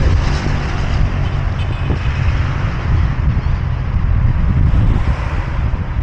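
Steady road traffic noise from cars on the road alongside, with wind rumbling on the microphone.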